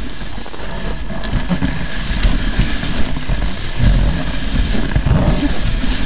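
Steady rumble of riding a snow scooter along a packed snowmobile trail, with wind buffeting the microphone and a few small knocks from bumps in the track.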